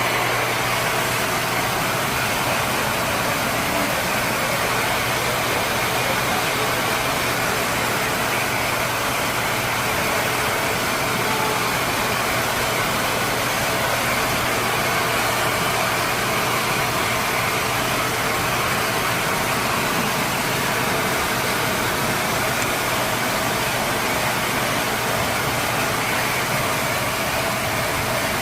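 Blow dryer running steadily: a constant rush of air with a low motor hum beneath it.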